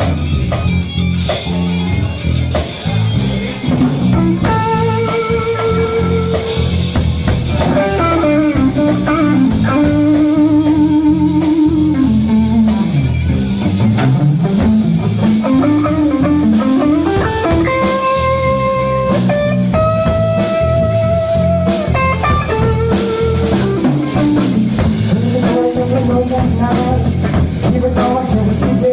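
Live blues band in an instrumental break: a guitar solo of held, wavering notes and sliding bends, including a deep swoop down and back up about halfway through, over bass guitar and drum kit.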